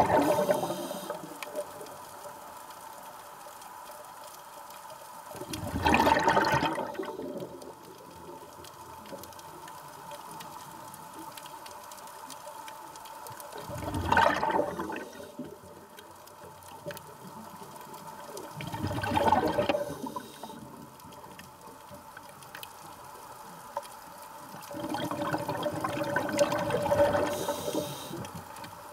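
Scuba diver's regulator exhaling, heard underwater: about five gurgling surges of bubbles several seconds apart, the last one longer, with a faint steady hiss between.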